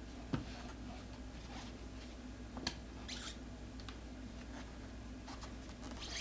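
Tire spoons prying at the bead of an e-scooter's front tire on its rim: a few short, sharp clicks and brief scrapes, spread out over a low steady hum.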